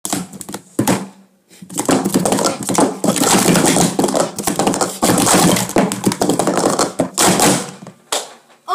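Speed Stacks plastic sport-stacking cups being rapidly stacked up and down on a StackMat: a fast run of clattering clicks and taps, with a brief pause about a second and a half in and a last single tap near the end.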